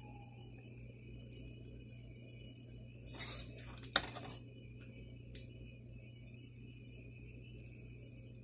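A metal ladle working through thick curry gravy in a wok, with a short scrape about three seconds in and a sharp clink of the ladle against the pan at about four seconds, over a steady low hum.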